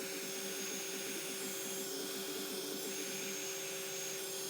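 Hot air gun blowing steadily, a constant airy hiss with a faint steady whine, heating a smartphone's back cover to soften the adhesive under it.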